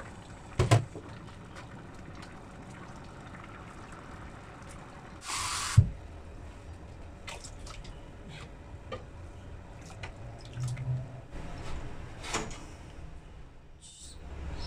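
Kitchen sounds while cooking: scattered clicks and knocks of utensils and containers, with a short burst of running water about five seconds in that ends in a sharp knock.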